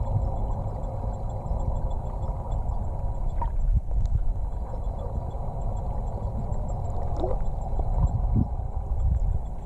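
Underwater sound picked up in a swimming pool: a steady, muffled low rumble of water, with a couple of faint bubbling gurgles.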